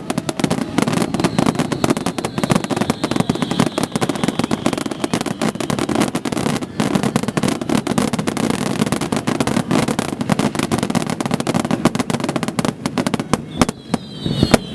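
Fireworks barrage (a star mine) going off in rapid succession: a dense, continuous string of bangs and crackles that thins out near the end.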